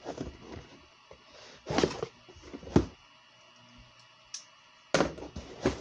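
Intermittent handling noises: short rustles and a few sharp clicks as a cardboard shipping box and its packaging are handled and opened, the busiest stretch near the end.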